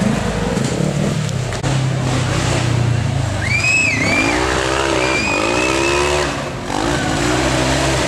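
Racing side-by-side's engine revving hard in repeated bursts, its pitch climbing and dropping as the car claws up a steep dirt hill, with a high-pitched squeal over the revs about halfway through.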